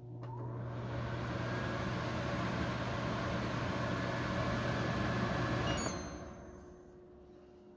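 A mains-powered electric motor with a fan starts with a click and runs steadily with a low hum and a rushing noise. After about six seconds it switches off and dies away.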